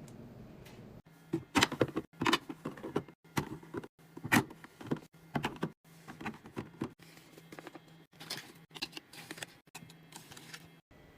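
Drinks, containers and packaging being handled and set down while a mini fridge is restocked: quick irregular clacks, knocks and rustles, heaviest in the first half and lighter later.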